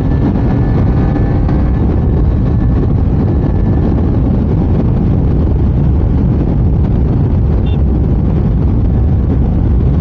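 KTM Duke 390 single-cylinder engine running at highway speed, around 100–120 km/h, buried under heavy wind rumble on the handlebar-mounted microphone.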